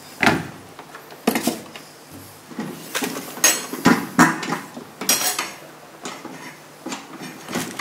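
Kitchen clatter: irregular knocks and clinks of plastic containers and utensils being handled beside a countertop blender that is not running.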